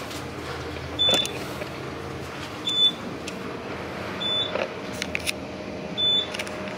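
Hotel elevator car rising with a steady cranky-sounding hum, and a short high beep four times, about every second and a half, as it passes each floor. A faint steady tone joins the hum about four seconds in, with a few light clicks.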